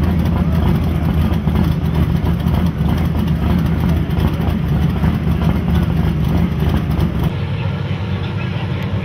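A drag car's V8 engine idling loud and deep, with a fast, uneven pulse. About seven seconds in the sound drops to a quieter, more distant engine rumble.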